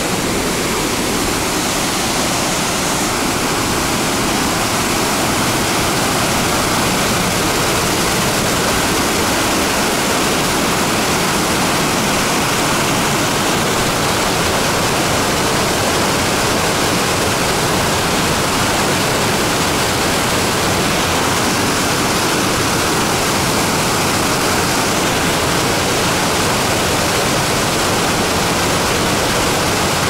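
Mountain waterfall cascading over rocks in a narrow gorge: a loud, steady rush of water.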